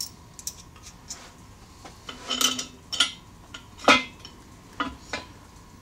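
Irregular metallic clinks and taps of mounting bolts, washers and nuts being handled while fitting a trailing arm; the loudest clink comes about four seconds in.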